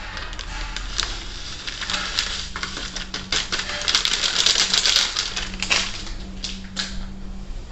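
Grated parmesan being shaken and tapped out of its container into a blender jar: a run of quick clicks and crackles, thickest about four to five seconds in, over a faint steady hum.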